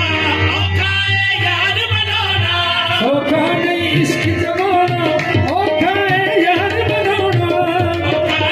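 Qawwali music: harmoniums playing sustained melody lines over tabla, with a singer's voice entering about three seconds in and winding up and down in long ornamented phrases.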